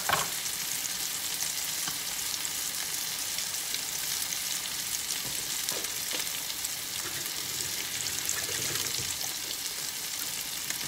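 Swai fillets sizzling steadily in hot butter and oil in a skillet, with fine crackling and spitting throughout. A short knock right at the start.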